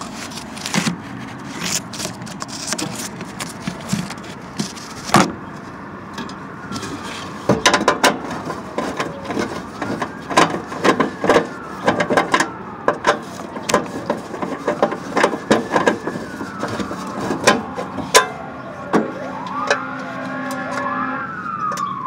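Repeated sharp clicks and knocks of tools and metal parts as the old inducer draft motor is unbolted and lifted off the furnace's sheet-metal cabinet. From about a third of the way in, an emergency-vehicle siren wails in the background, rising and falling over and over.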